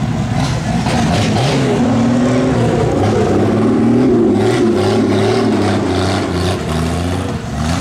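Demolition derby car engines revving and easing off, their pitch rising and falling, several engines at once.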